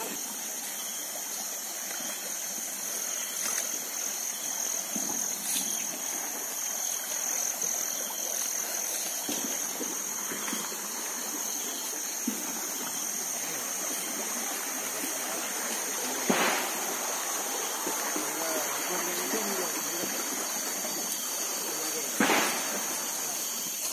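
Steady rushing outdoor noise with a continuous high buzz, and two sharp knocks about 16 and 22 seconds in.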